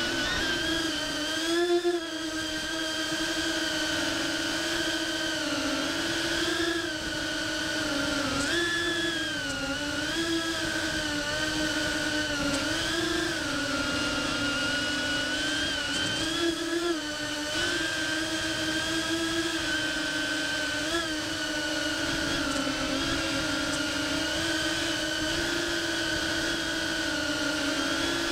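Ducted cinewhoop FPV drone (iFlight CineBot30) motors and propellers whining in flight, the pitch rising and falling constantly with the throttle.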